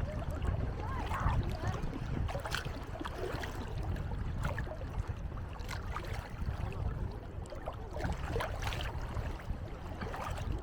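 Shallow sea water splashing and sloshing, with scattered short splashes over a steady low rumble.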